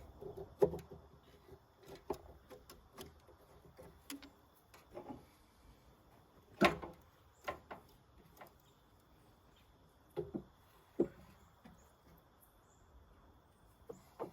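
Scattered knocks and clinks of tools and metal engine parts being handled during cylinder head removal, with a sharp knock about half a second in, the loudest near the middle, and another strong one about eleven seconds in.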